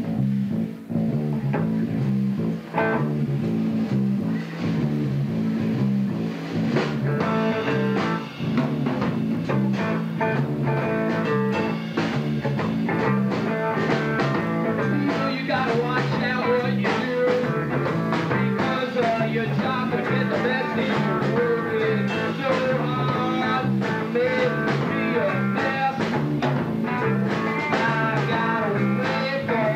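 Blues-rock band playing live: electric guitar over a steady, repeating bass riff, the sound growing fuller from about seven seconds in.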